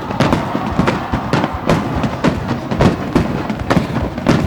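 Aerial fireworks going off in a rapid, irregular barrage: several sharp bangs a second overlapping one another over a continuous low rumble.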